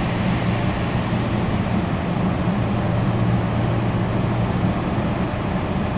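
Meitetsu Tokoname Line electric train running, a steady rumble of running noise with a low, even hum.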